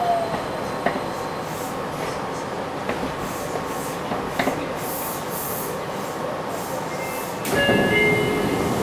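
Fukuoka City Subway 2000 series train running through the tunnel: a steady rolling rumble with a few sharp clicks from the wheels over the rails. Near the end the noise grows louder and several steady tones come in.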